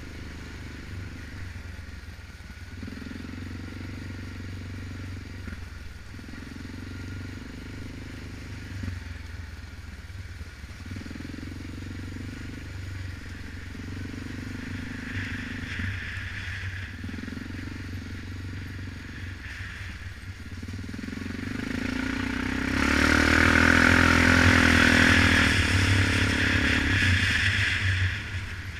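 Single-cylinder ATV engine running on a rough trail, its note swelling and easing every couple of seconds with the throttle. About 21 seconds in it builds to a much louder hard-throttle run for several seconds, then drops back sharply near the end.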